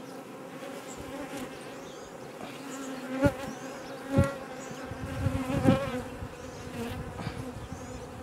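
Honeybee colony humming steadily in an open hive. Three sharp knocks a few seconds in, about a second apart, as the wooden frames are pried apart and gripped with a metal frame grip.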